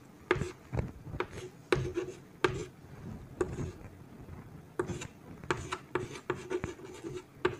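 Chalk writing on a chalkboard: a run of short, irregular scratching strokes and taps as lines and a ring structure are drawn.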